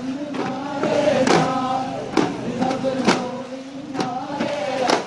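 Daff muttu: a group of men chanting a song in unison while striking daf frame drums together, with a sharp beat about once a second.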